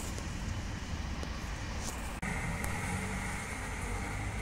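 Outdoor background noise: a steady low rumble of distant road traffic with a hiss over it, shifting abruptly about two seconds in, after which a faint steady tone sits on top.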